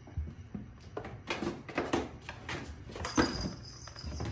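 Kittens playing: a run of irregular soft thumps and scuffles starting about a second in.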